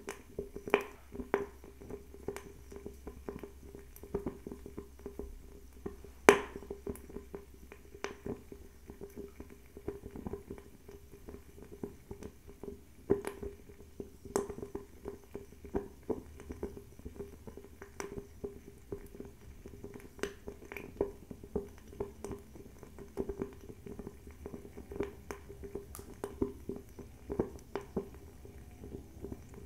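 Fire in a bio-ethanol table fireplace crackling, with irregular sharp pops and snaps over a low steady hum. The loudest snap comes about six seconds in.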